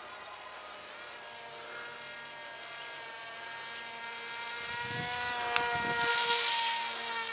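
Wild Hawk RC plane's motor and propeller whining, several pitches at once, growing louder as the plane passes close overhead about five to six seconds in and then easing slightly. Wind rumbles briefly on the microphone during the loudest part, with a single click.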